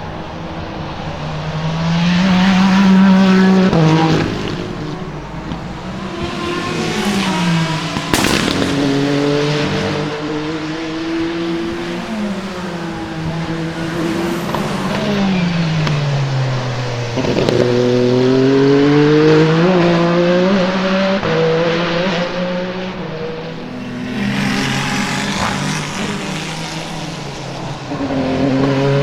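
Peugeot 9X8 EVO hypercar twin-turbo V6 engines at racing speed, over several passes. The pitch climbs under acceleration, steps down at gear changes and falls away under braking and downshifts, with a sharp crack about eight seconds in.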